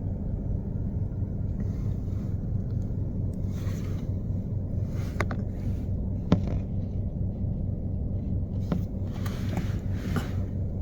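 Steady low rumble of an idling car, with a few faint clicks and one sharper click about six seconds in.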